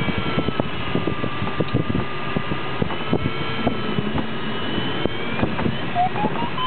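Steady rush of airflow inside a glider cockpit in flight, with irregular low knocks and a faint electronic tone. About six seconds in, the tone turns into short beeps that climb in pitch, as a glider's audio variometer does in rising air.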